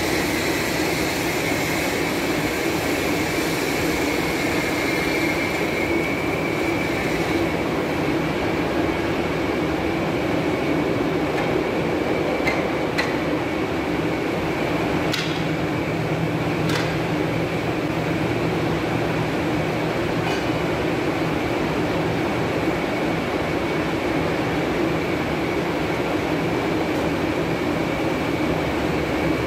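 Stone-processing machine running steadily as a stone slab is carried through it on a wet conveyor belt and rollers: a continuous mechanical drone with a thin high whine. A few sharp clicks come around the middle.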